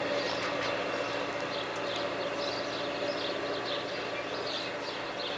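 Freight train of silo wagons rolling away over the rails: a steady noise of wheels on track with faint steady tones, getting slightly quieter, while birds chirp over it.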